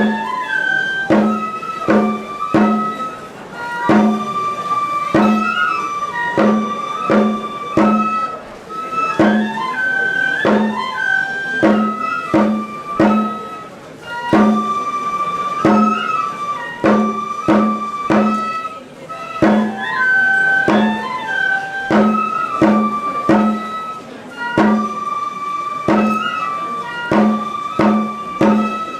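Traditional Japanese shrine-festival music: a flute playing held notes that step up and down over steady, evenly repeated drum strikes, accompanying a ritual field-tilling dance.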